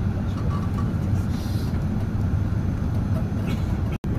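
Steady low rumble of engine and airflow noise inside an Air France Airbus A380's cabin. It cuts out for an instant near the end.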